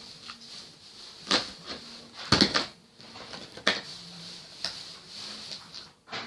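Packaging and plastic toy-blaster parts being handled: rustling, with a few sharp plastic knocks and clicks spread a second or so apart.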